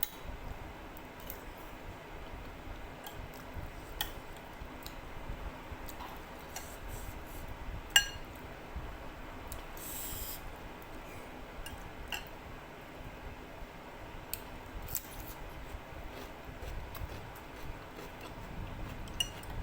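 Eating sounds: cutlery tapping and clinking against a dish in scattered small clicks, with one loud ringing clink about eight seconds in and a short hiss a couple of seconds later, over the steady hum of an electric fan.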